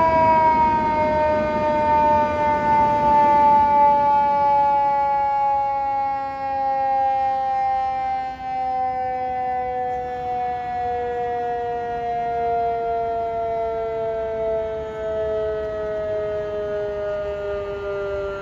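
Fire engine's mechanical siren coasting down in one long, slow, falling wail after being wound up, its pitch sinking steadily and gradually getting quieter, over city traffic noise.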